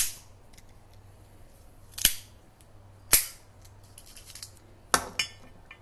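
Cigar cutter snapping shut: sharp clicks at the start, about two and three seconds in, and a quick pair near the end.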